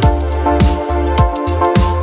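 Electronic background music: a kick drum falling in pitch on each beat, a little under two beats a second, over a sustained bass and held synth chords.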